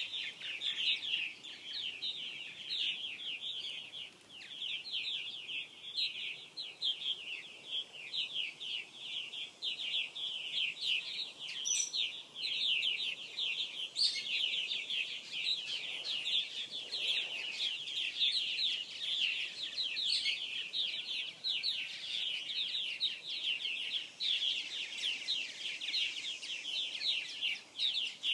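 Purple martin colony calling: many birds chirping at once in a dense, continuous chorus of short, rapid, overlapping calls.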